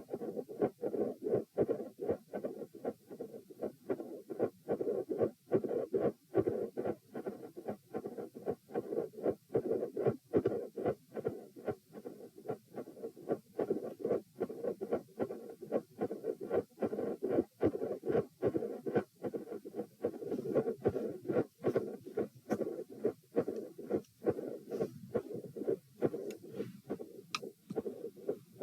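Human heart sounds heard on the chest: a steady, regular heartbeat, with split first and second sounds and a murmur that fills the gaps between beats.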